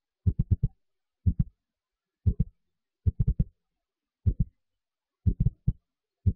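A steady thumping beat: about once a second, a quick run of three or four deep thumps, with dead silence between.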